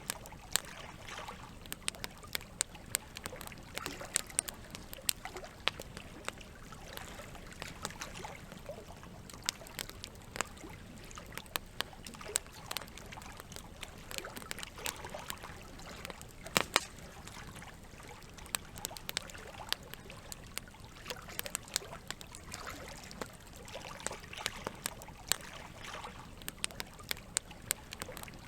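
Campfire crackling with frequent, irregular sharp pops over a steady trickle of running water.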